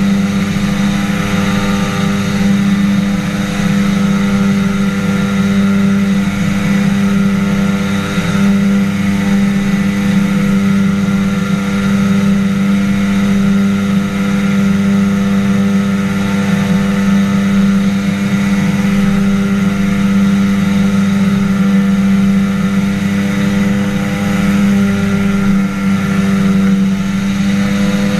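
Engine and pusher propeller of a microlight flying boat (an inflatable-hull trike) running steadily in cruising flight. It makes a loud, even drone with a strong low hum whose pitch hardly changes.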